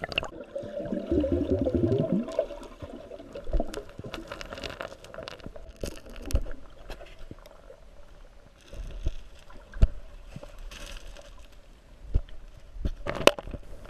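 Muffled water movement heard underwater, with a burst of bubbling and gurgling about a second in, then scattered sharp clicks and knocks.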